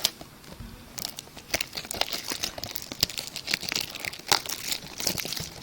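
Plastic wrapping on a box of baseball trading cards being torn open and crinkled by hand, a dense run of irregular crackles and rips.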